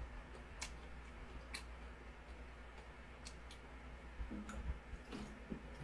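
Faint plastic bottle clicks and crackles, a few scattered ones, then soft gulps about four seconds in as a man drinks from a large clear plastic bottle, over a low steady hum.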